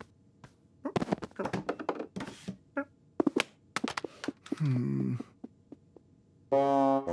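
Cartoon sound effects of a TV remote being knocked about and clattering onto the floor: a quick run of knocks and clicks for about three seconds. After it comes a man's short groan, falling in pitch, about two-thirds of the way in, and a low held hum near the end.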